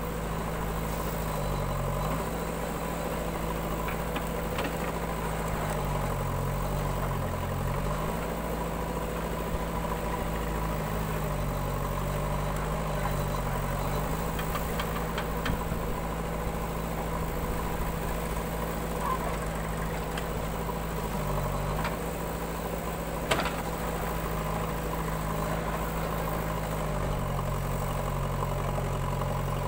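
JCB backhoe loader's diesel engine running at idle, its note sagging briefly and recovering several times as the digging arm's hydraulics load it. There is a single sharp knock about 23 seconds in.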